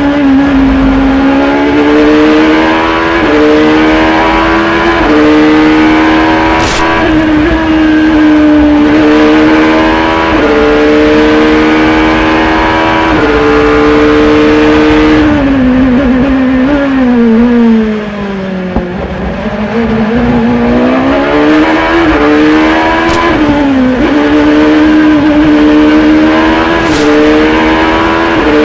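Onboard sound of an Acura ARX-01 sports prototype's V8 racing engine at full throttle, its pitch climbing and dropping back at each upshift. Just past halfway the revs fall away as it brakes and changes down to its lowest, quietest note, then it accelerates hard up through the gears again.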